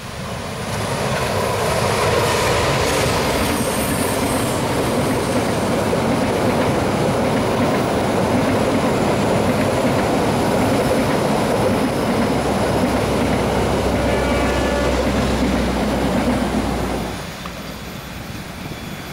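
Diesel-hauled passenger train passing close by, its coaches' wheels rumbling and clattering over the rails and a steel truss bridge. The sound grows loud about a second in and drops abruptly near the end to a fainter train noise.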